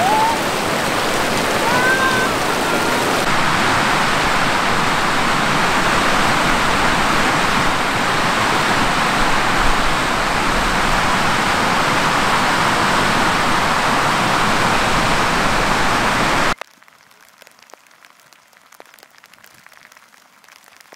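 Rushing water of a rocky mountain stream, a steady loud rush, with a few short high chirps near the start. It cuts off suddenly a few seconds before the end, leaving only faint light crackles.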